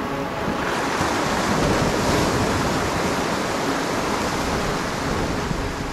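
Sea swell surging in against the rock ledge and washing back as white water: a rush that builds about a second in and slowly eases off.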